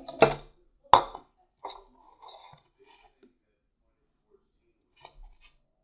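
A clear bowl set down on a tabletop: two sharp knocks about a second into the clip, followed by lighter clinks and handling noise and a faint click near the end.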